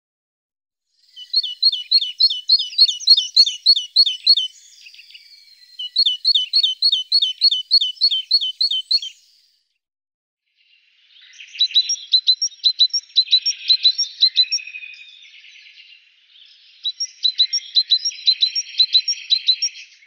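A songbird singing in four phrases of quick repeated chirps, about three to four notes a second, with short pauses between the phrases.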